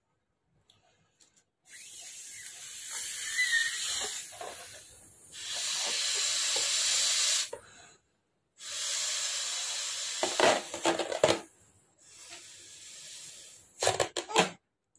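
A person blowing hard into a rubber balloon to inflate it: four long, breathy puffs of two to three seconds each with short pauses between, then a few short sharp sounds near the end.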